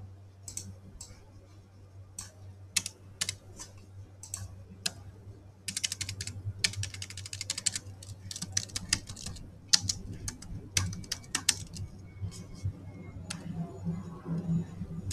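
Typing on a computer keyboard: scattered single keystrokes, then a fast run of keystrokes about six seconds in, then more scattered strokes, over a low steady hum.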